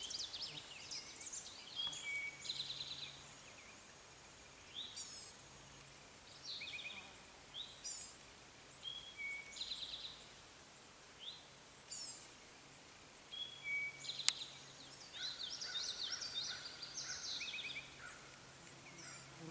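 Male scarlet tanager singing: short phrases repeated with brief pauses between them, the song growing denser near the end, with thinner high notes from other birds mixed in. A single sharp click about two-thirds of the way through.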